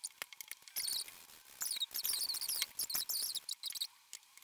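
Lemon rind being grated on a flat metal grater: quick, high rasping strokes in three runs, the longest about a second, with small clicks between.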